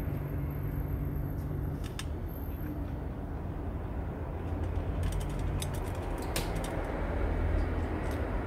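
A stray cat licking and chewing a churu puree treat from a steel bowl, heard as small quick clicks, mostly from about halfway through. A steady low rumble runs underneath.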